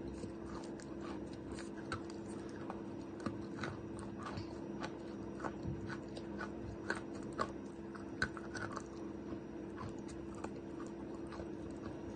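Close-up chewing of chalk, a mix of wet and dry pieces, with many short crunches at an uneven pace, loudest about two thirds of the way in. A steady low hum runs underneath.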